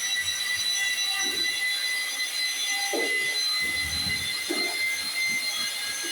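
A steady high-pitched whine made of several level tones, with a few faint low knocks or sounds under it.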